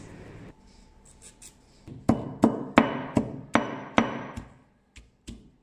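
Granite pestle pounding shallots and ginger in a heavy granite mortar. About two seconds in come about eight sharp stone-on-stone knocks, two or three a second, some with a brief ring.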